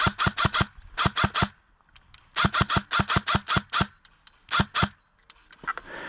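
Airsoft electric rifle (ICS PAR MKIII S-AEG) firing rapid strings of shots, each a sharp snap with the whirr of the motor-driven gearbox, about six or seven shots a second. There are four strings with short pauses between them, the last only two or three shots, about three-quarters of the way in.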